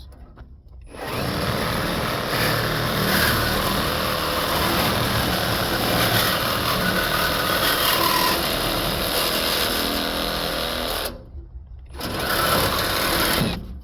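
Handheld electric power tool running while cutting a piece off an air conditioner's coil assembly: one long run of about ten seconds, a short break, then a second short burst near the end.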